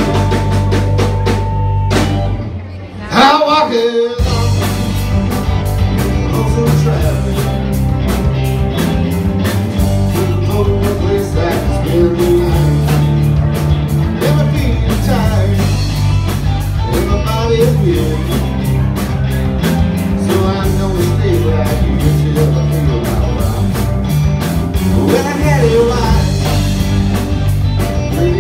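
A blues-rock band playing live, with electric guitars and a drum kit. About two seconds in the band briefly drops out, then the full band comes back in and plays on steadily.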